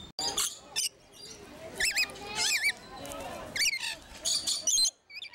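Rainbow lorikeets calling: a quick run of short, shrill, warbling screeches and chatter.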